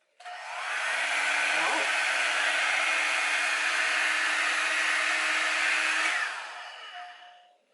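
Revlon One-Step hair dryer brush switched on: its fan starts at once and runs with a steady rushing blow and a faint motor hum, then winds down about six seconds in.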